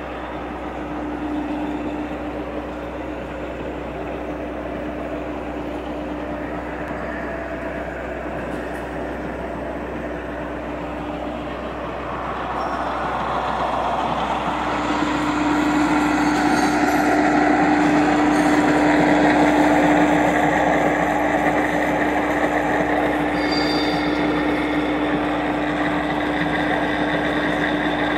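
Large horizontal-spindle milling machine running, its dovetail cutter milling cast iron: a steady cutting noise over a constant hum, getting louder about halfway through.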